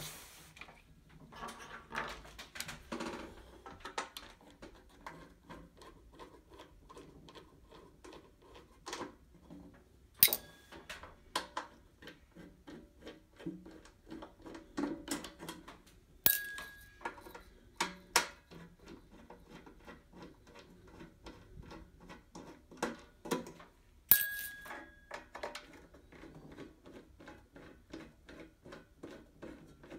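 Hands handling the metal casing of a Decent espresso machine: a run of small clicks and knocks, with a few sharp metallic strikes, three of which ring briefly.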